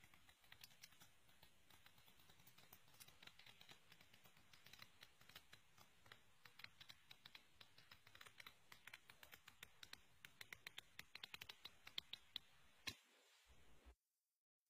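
Pages of a paperback textbook being flicked one after another under a thumb: a fast run of soft paper ticks. The ticks grow louder and quicker toward the end, then stop.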